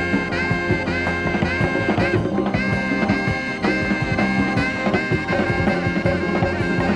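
Live jazz-rock band playing: tenor saxophone with electric guitar, bass guitar and drum kit, a short melodic phrase with an upward bend repeated about twice a second over a steady drum beat.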